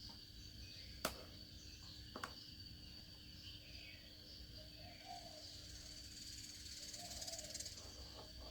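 Faint background with a steady high tone and a low hum, two sharp clicks about one and two seconds in, and soft wavering calls with a light hiss in the second half.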